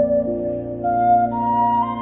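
Background music led by a flute playing slow held notes over a sustained low drone.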